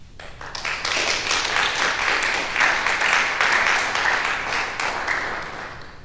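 Audience applauding, building over the first second and dying away near the end.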